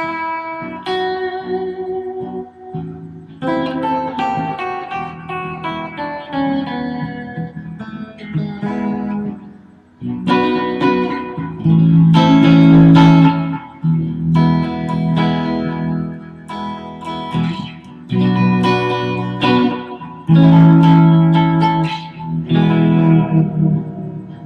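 Fender Stratocaster electric guitar played solo, picked notes and chords ringing out, growing louder about ten seconds in.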